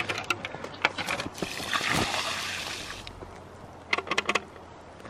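Water dumped out of a plastic bucket onto snow: a splash and pour lasting about a second and a half midway through. Short crunches and clicks come before and after it.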